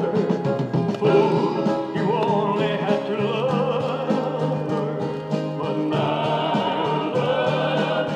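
Music with singing playing from a 45 rpm vinyl record on a DIGITNOW Bluetooth record player turntable.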